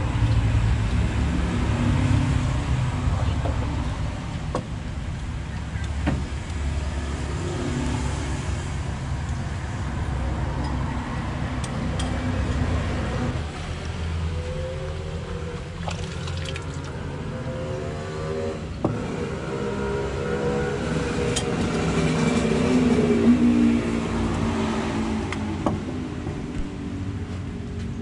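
Steady rumble of road traffic, with scattered sharp clicks and knocks of a knife, spoon and ladle against china plates and a metal soup pot as chicken is cut and broth is served.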